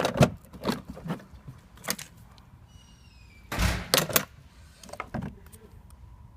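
Metal tool chest drawers sliding and clunking, with knocks and rattles from the tools inside. The loudest is a longer rolling slam about three and a half seconds in, just after a faint rising squeak.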